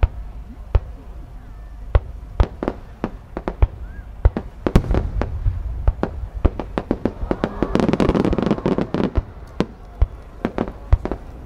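Aerial fireworks shells bursting: a run of sharp, irregularly spaced bangs, with a dense crackling stretch about two thirds of the way in that is the loudest part.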